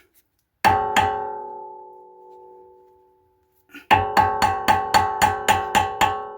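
Hammer blows on metal, each leaving a long, clearly pitched ring: two strikes, a pause of nearly three seconds, then a quick run of about nine strikes at roughly four a second. It is the sound of trying to knock loose a stubborn cap on a car's wheel hub.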